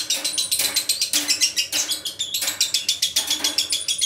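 Lovebird singing: a long, fast run of shrill chirps and clicking notes.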